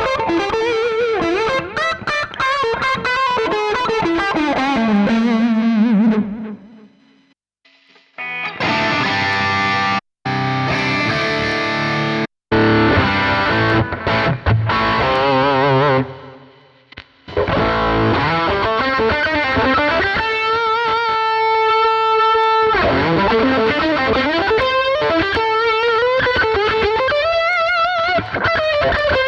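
Electric guitar played through a Fractal Audio FM9 amp-modeler preset: a fast lead run, a short break, then stop-start riffing that cuts off sharply several times. After a second gap comes a sustained lead line with string bends and vibrato, one note held for about two seconds.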